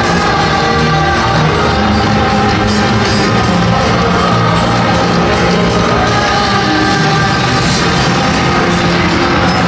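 Loud rock-style music over the stadium's public-address system for the starting-lineup presentation, with crowd noise beneath it.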